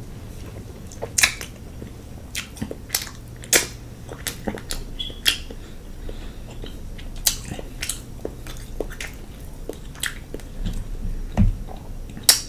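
Close-miked chewing of king crab meat in sauce: wet mouth smacks and sharp clicks at an irregular pace, a few every second or two.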